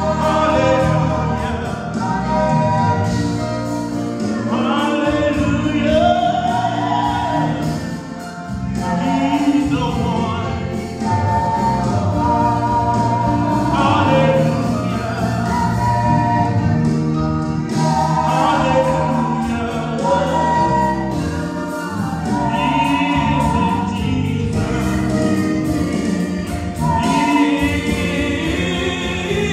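Small gospel choir of men's and women's voices singing together with instrumental accompaniment of sustained keyboard notes and light percussion.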